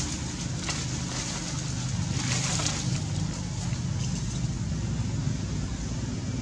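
A steady low motor hum, with a short rushing hiss about two seconds in.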